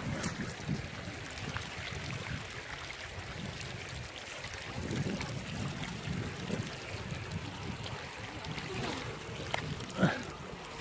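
Stream water sloshing and splashing, with wind on the microphone making uneven low rumbles. A single sharp knock or splash stands out near the end.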